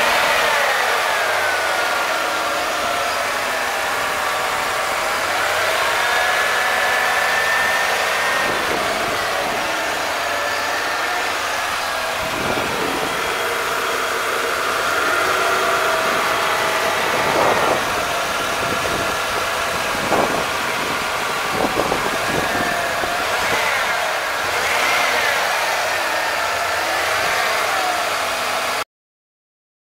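Ford 5.8-litre EFI V8 idling, heard up close in the open engine bay, with a steady mid-pitched whine over it and a few brief louder moments in the second half. The sound cuts off suddenly near the end.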